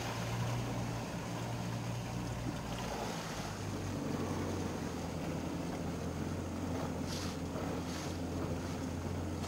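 Boat engine running at low speed, its hum dropping slightly in pitch about three seconds in, with wind and water noise.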